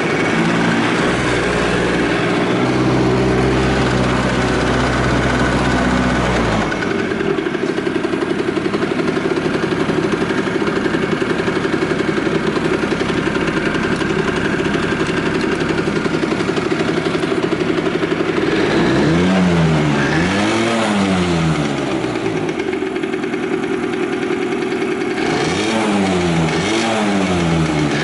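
Honda NS-1's 50cc two-stroke single-cylinder engine running steadily at idle, then revved up and down several times with quick blips of the throttle in the last third. It runs with no abnormal noise, as the seller states.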